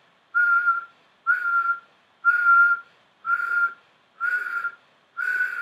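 A man whistling six short notes, about one a second, each held on the same steady pitch.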